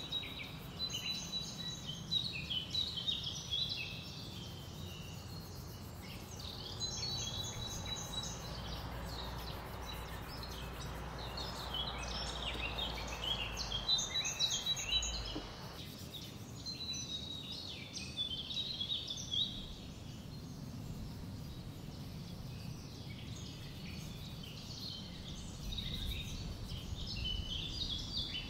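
Birds singing and chirping over a low, steady background noise.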